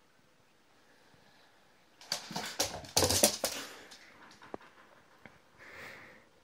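A young Labrador's paws and claws clattering and thumping on a wooden floor as it dashes about with a plush toy: a dense burst of clicks and thumps about two seconds in, lasting under two seconds, then a few fainter ticks.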